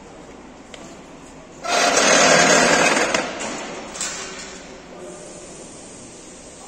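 Pneumatic equipment at the base of a frame-straightening bench's pulling tower: a loud hissing, rattling burst that starts abruptly under two seconds in, runs for about a second and a half, then dies away over the next couple of seconds, with a short knock about four seconds in.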